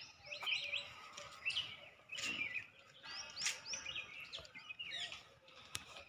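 Several birds chirping in the trees: many short, quick calls overlapping throughout, with a single sharp click shortly before the end.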